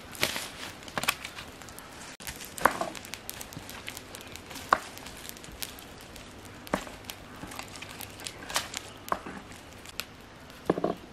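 Irregular sharp crackles and knocks from a wood cooking fire and firewood being handled, with a short cluster of louder knocks near the end.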